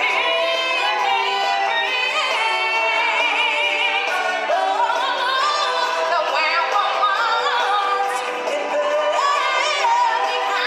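Stage-show song: a singer holding long notes with a wavering vibrato over musical accompaniment.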